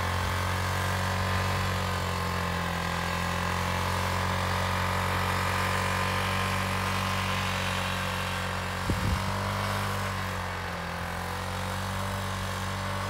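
1999 Yamaha Kodiak 400 ATV's single-cylinder four-stroke engine running steadily at 60–80% throttle through a Kolpin Stealth muffler, under load in deep snow. A brief knock about nine seconds in.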